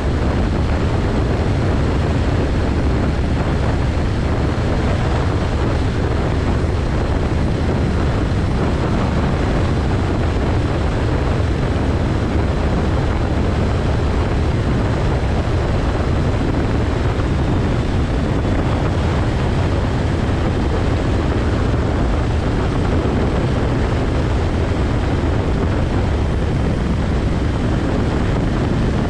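A 2000 Cessna 172SP's four-cylinder Lycoming engine and propeller running steadily, heard as a constant low drone inside the cabin. A faint high whine sits above it and drifts slightly lower about halfway through.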